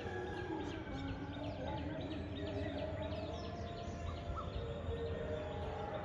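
Many small birds chirping in a rapid, continuous chatter of short, quick notes over a steady low background rumble.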